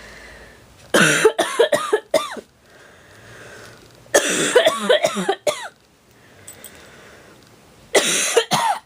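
A person's chest cough from hay fever (a ragweed allergy, not a cold): three fits of several coughs each, starting about a second in, about four seconds in and near the end.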